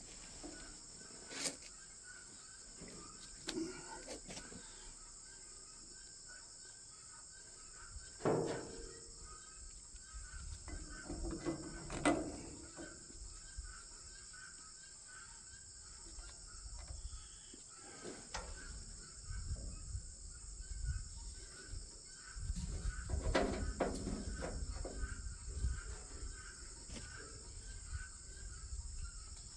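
A steady chorus of crickets and other insects, with a few scattered knocks and clinks, and a low rumble in the second half.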